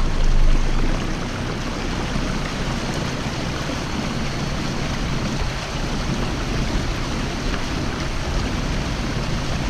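Water rushing along the hull and churning in the wake of a small motorized boat running at full throttle under an electric outboard, a steady hiss that is a little louder in the first second.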